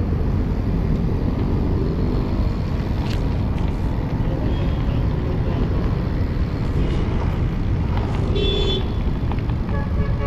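Strong wind buffeting the camera microphone while cycling, a steady low rumble. About eight seconds in there is a short high-pitched sound lasting around half a second.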